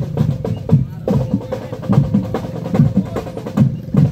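Marching drum band playing a steady rhythm: bass drum beats about twice a second with snare and other percussion hits between them.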